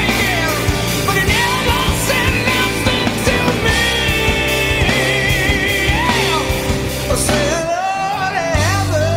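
Electric guitar played along to a rock recording, with a male singer holding long wavering notes. The low end drops out for a moment near the end, then comes back.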